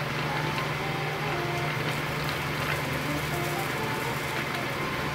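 A steady hiss with a low hum beneath it and a few faint clicks, under a soft, faint melody of background music.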